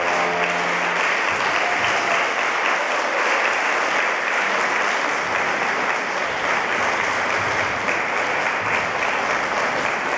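Audience applauding steadily, a dense even clapping. The last held note of the dance music dies away in the first second.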